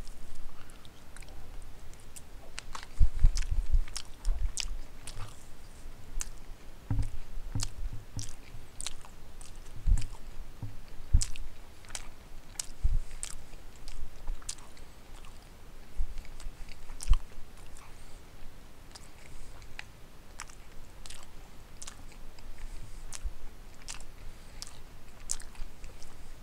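A man chewing a mouthful of pot roast, potatoes and carrots close to the microphone: frequent wet mouth clicks and smacks, with low thumps now and then, most of them in the first half.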